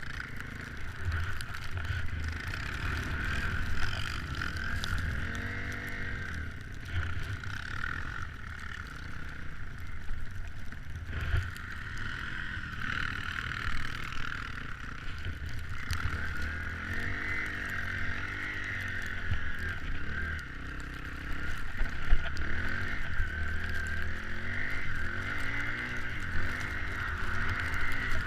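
Off-road motorcycle or ATV engine running and revving up and down over and over, with a steady rushing noise throughout.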